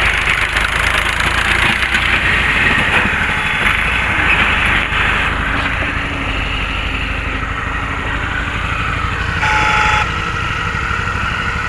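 Electric hydraulic pump unit for post-tensioning jacks running steadily while it pressurises the jacks to stress a girder's cables. About nine and a half seconds in it briefly gets louder, with a short steady whine.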